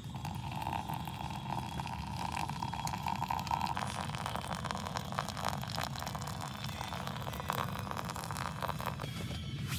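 Hot water poured in a thin stream from a gooseneck kettle into an AeroPress onto coffee grounds. It makes a steady trickling tone for the first few seconds, then a looser crackly splashing as the brew fills, over a steady low rumble.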